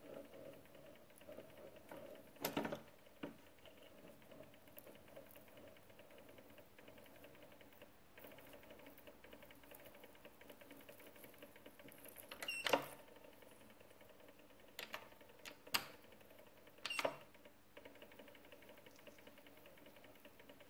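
Small bench mill running with a drill bit cutting into a metal block: a faint steady machine hum with a fast fine chatter, broken a few times by short sharp squeaks and clicks from the cut, the loudest about halfway through.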